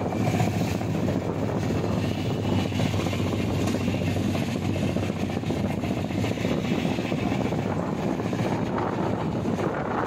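Passenger train running steadily at speed, heard from an open coach window: an even rumble of wheels on the rails with the rush of passing air.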